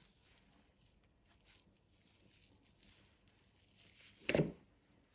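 Faint tearing and rustling as the slimy skin is peeled by hand off a slippery jack mushroom cap, with one louder short thump about four seconds in.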